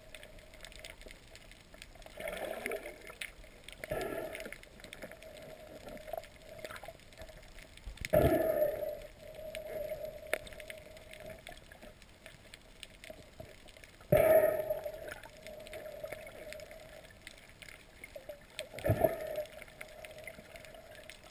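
Muffled underwater sound through a GoPro's waterproof housing: water rushing against the camera in about five sudden surges that fade away, the loudest about 8 and 14 seconds in, over a faint steady hum.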